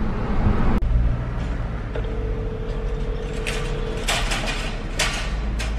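Telephone ringback tone of an outgoing call: one steady ring lasting about two seconds, over the low steady rumble of a car, with a few short clicks and knocks.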